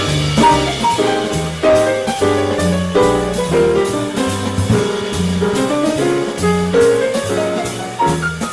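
Live acoustic jazz: a piano plays a line of single notes over an upright bass walking at about two notes a second, while a drum kit keeps time on the ride cymbal.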